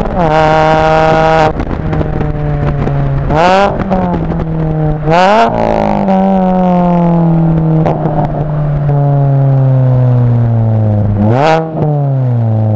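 2006 Mini Cooper's four-cylinder engine running through Megan Racing headers and cat-back exhaust. The revs jump up quickly three times, and after each jump the pitch falls slowly away, the longest fall lasting several seconds.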